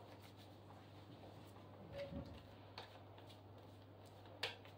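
Tarot cards shuffled by hand: a few faint, soft clicks as the cards are handled, over a low steady hum.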